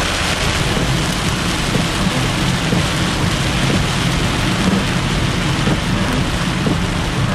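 Heavy rain falling on a car's roof and windscreen, heard from inside the car as a steady, dense hiss.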